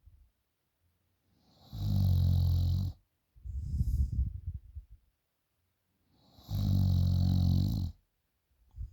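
A young woman snoring loudly in her sleep. Twice, a steady buzzing snore of about a second is followed by a rougher, ragged breath, and the cycle repeats every four and a half seconds or so.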